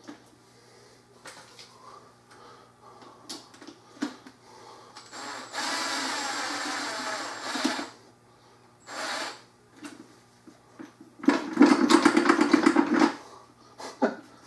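Cordless drill driving a screw into a pressure washer's handle frame: a steady run of a couple of seconds, a short burst, then a louder run with a fast rapid clicking as the screw pulls up tight.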